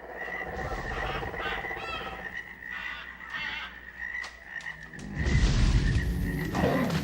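Jungle ambience sound effect: frogs croaking, chirping calls and a steady high insect drone. About five seconds in, a loud deep rumble swells in under it.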